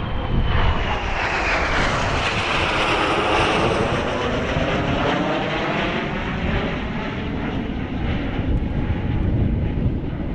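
Kawasaki T-4 jet trainer's twin turbofans roaring as it passes, with a high whine that falls in pitch during the first couple of seconds. The roar peaks a few seconds in and then slowly fades away.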